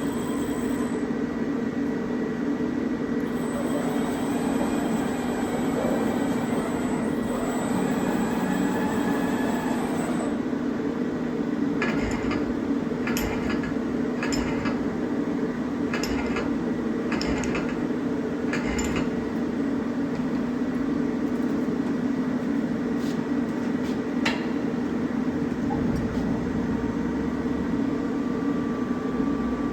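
Steady machine hum with a low, even drone. A run of sharp clicks or knocks comes about once a second from roughly twelve to nineteen seconds in, with a few more scattered later.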